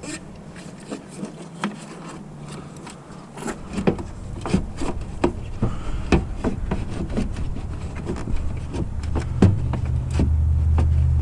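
Irregular plastic clicks, knocks and scraping as a headlight wiring connector is worked by hand and with a small screwdriver to release its latch. A low rumble comes in partway through and grows louder near the end.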